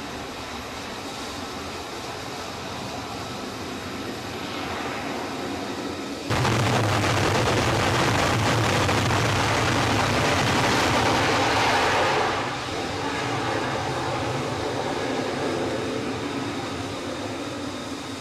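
Fighter jet engine noise on an aircraft carrier flight deck. A steady jet rumble jumps suddenly much louder about six seconds in as a fighter runs at full power on the steam catapult, then eases off after about twelve seconds as the jet launches and climbs away.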